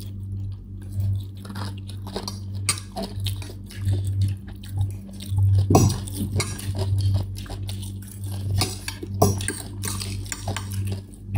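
A fork clinking and scraping against a bowl in many short, irregular knocks while noodles are eaten, over a low steady hum.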